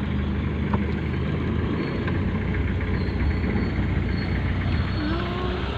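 Vehicle engine running steadily with a low rumble, heard from inside the cabin while driving.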